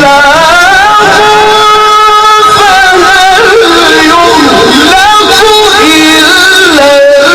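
A man's voice reciting the Quran in melodic tajweed style, holding long, ornamented notes that waver and slide in pitch.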